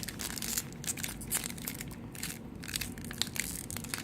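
Plastic trading card pack wrapper crinkling and crackling as hands work it open.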